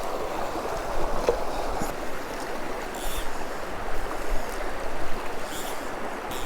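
Shallow river current rushing steadily over rocks, with a few faint ticks.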